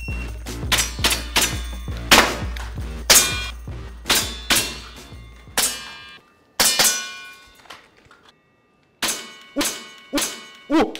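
Gas blowback airsoft pistols firing, with BBs clanging on hanging steel plate targets, mostly in quick pairs. Background music with a low beat runs under the shots for the first half and stops about six seconds in; the shots and ringing clangs go on after it.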